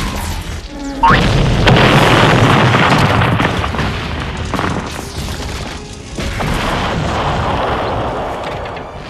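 Cartoon sound-effect boom over music: a short rising whistle, then a sudden loud crashing blast about a second in that rumbles on for a few seconds, followed by a second, softer rumbling swell.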